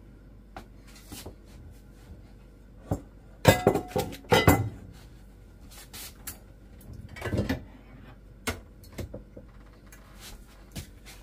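Kitchen clatter: scattered knocks and clinks of pots, pans and utensils being handled and set down. The loudest cluster comes a little over three seconds in.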